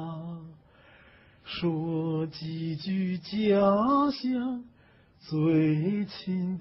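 A man singing a slow Chinese song unaccompanied, holding long, steady notes, with two short pauses between phrases.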